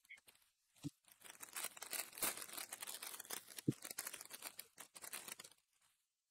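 Foil trading-card booster pack being torn open by hand, its wrapper crinkling and crackling for about four seconds before stopping, with a soft knock partway through.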